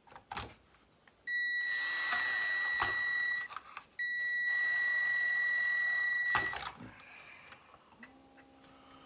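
Small electric screwdriver running in two bursts of about two seconds each, a steady high whine, driving the 3x12 mm screws that hold the battery holder to the RC chassis. A few clicks come between the runs, and a lower, quieter hum starts near the end.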